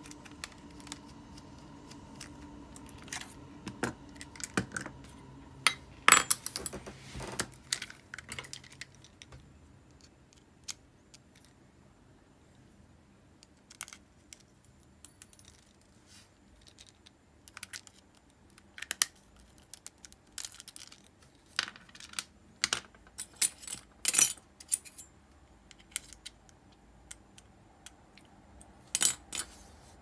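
Irregular light metallic clicks and clinks of small Ambassadeur 2500C reel parts and tools being handled, thickest about six to eight seconds in, with scattered clusters later. A faint steady hum lies under the first part.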